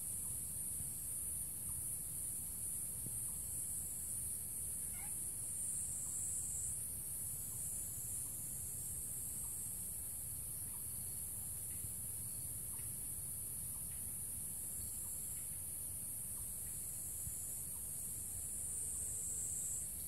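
A steady, high-pitched chorus of summer insects buzzing without pause, its pitch dipping slightly a couple of times. A short, faint rising call is heard about five seconds in.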